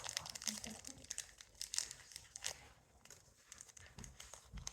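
Small plastic packet from a Popin' Cookin' candy kit being torn open and crinkled in the hands, heard as a scatter of faint crackles.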